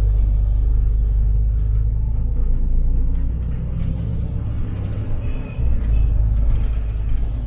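Inside a city bus under way: a steady heavy rumble of engine and road, with brief hisses of air near the start and about four seconds in.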